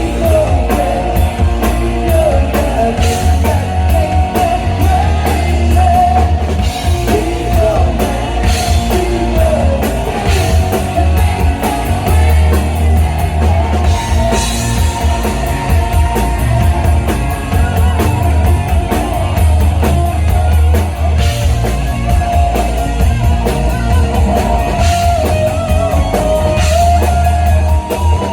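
Live rock band playing a song, with drum kit and electric guitar and some singing, heavy in the bass.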